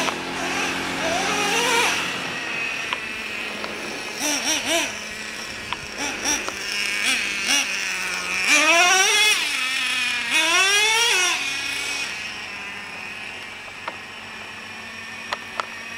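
Radio-controlled monster truck's motor revving in short blips and then two longer rising and falling whines as it is driven along the road.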